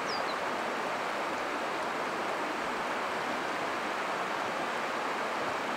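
Steady rush of flowing shallow river water, an even hiss. One short, high, falling chirp right at the start.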